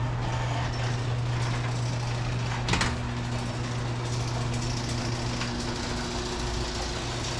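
Electric garage door opener raising a sectional garage door: a steady motor hum with the door running up its tracks, and a single sharp click about three seconds in.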